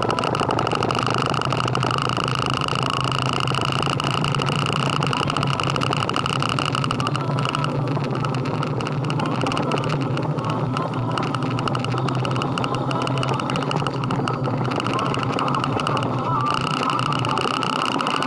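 Harley-Davidson motorcycle running at a steady speed, an even engine note mixed with rushing road and wind noise. From about seven seconds in to about sixteen seconds in, the higher part of the sound drops back a little, then returns.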